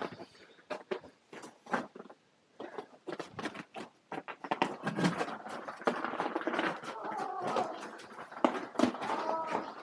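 Irregular crunching footsteps on ice and snow, growing busier about halfway through, with faint indistinct voices echoing in the ice cave near the end.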